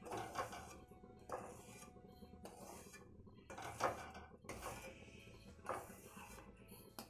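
Wooden spatula scraping roasted semolina out of a metal kadhai in repeated short strokes, about one a second.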